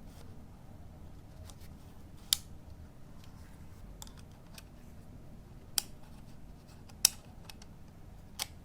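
A few sharp, separate clicks, four of them clear and a second or more apart, over a low steady hum: small plastic and metal parts of a camera being handled and set up.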